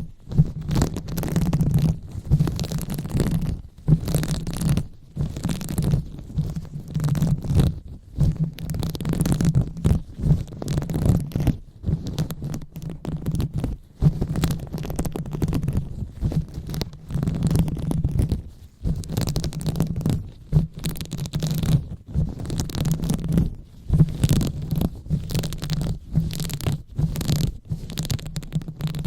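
Hands rubbing and massaging right on the microphone: continuous muffled rubbing and scratching in quick, uneven strokes, with a strong low rumble.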